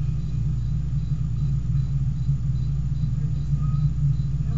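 A steady low rumble of background room noise, even throughout with no distinct events.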